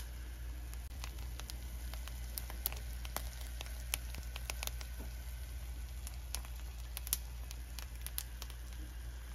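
Cooked rice pressed thin in a pan, crackling and sizzling with irregular small pops as it toasts into a nurungji crust, over a steady low hum.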